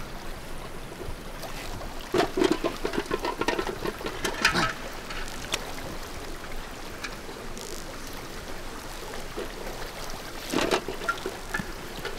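Mountain stream running over rocks, a steady rush of water with louder, uneven bursts of splashing about two to five seconds in and again near the end.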